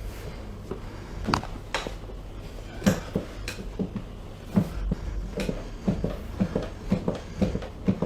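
Soft thumps and sharp knocks from hands working a body during a massage and stretching session. A few scattered knocks come first, then a quicker run of about four a second from about five seconds in.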